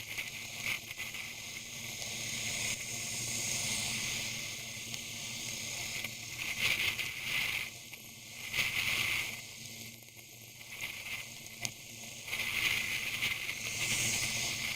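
Riding a motorcycle in rain: wind and rain hiss on the helmet camera's microphone, swelling and easing in waves, with a lull about two thirds of the way through.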